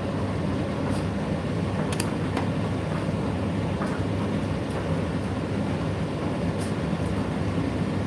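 Indesit IDC8T3 8 kg condenser tumble dryer running: a steady low hum of the motor and turning drum, with a few faint ticks.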